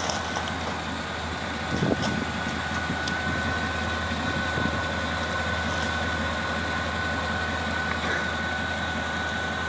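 Chevrolet S10 pickup's V6 engine idling with a steady low rumble, a thin steady whine running over it, and a brief louder moment about two seconds in.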